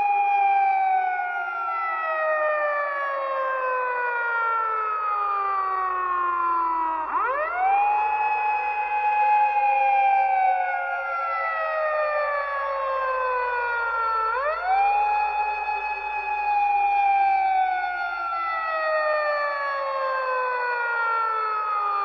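Siren wailing in long repeating cycles. Each one rises quickly in pitch, holds for a moment, then falls slowly over several seconds, starting again about every seven seconds.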